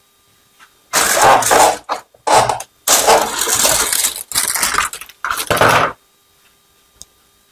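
Polythene bag crinkling in several loud bursts of handling, as a keyboard is pulled out of its plastic wrapping.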